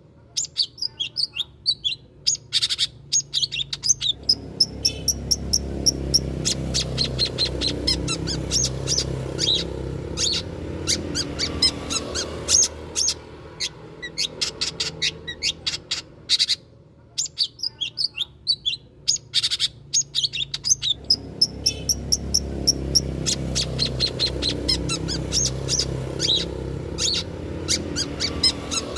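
Long-tailed shrike (cendet) song used as a lure recording: fast runs of sharp chirps and chattering notes, over a low rumbling noise that swells in and fades out. The same passage comes round again about seventeen seconds later.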